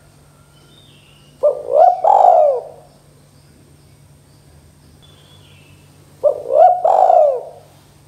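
Spotted dove cooing twice, about five seconds apart. Each call is a three-part phrase: a short clipped note, a quick rising-and-falling coo, then a longer coo that drops away at the end.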